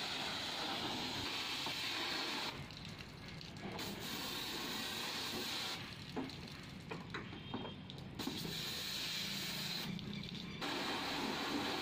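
Pressure washer jet spraying water onto the car body and wheel in a steady hiss over a low hum. The spray cuts out three times as the trigger is let go: about two and a half seconds in for about a second, around six seconds in for about two seconds with a few small ticks, and briefly near ten seconds.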